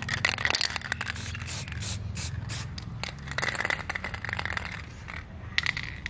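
Aerosol spray-paint can spraying black paint in a series of short hisses, with one longer spray of about a second near the middle.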